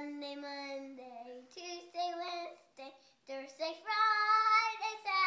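A young girl singing unaccompanied, in several drawn-out phrases with long held notes; the longest and loudest note comes near the end.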